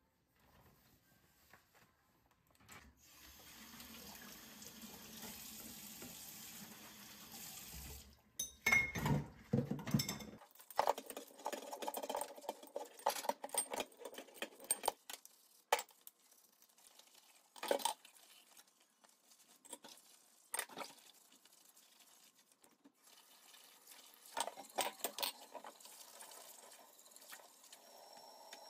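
Tap water running into a stainless steel kitchen sink while glass jars are washed by hand, with sharp clinks and knocks of glass against glass and the sink. The water runs steadily from a few seconds in, and the clinks come scattered through the second half.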